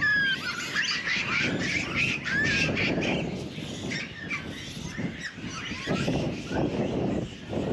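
Japanese macaques calling: many short, high coos and squeaks that rise and fall in pitch, thickest in the first three seconds, over low background noise.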